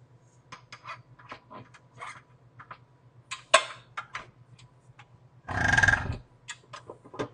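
Metal clicks and clanks of a stand mixer's steel bowl and beater being fitted and handled, the sharpest about halfway through. Then the mixer motor starts and runs for under a second.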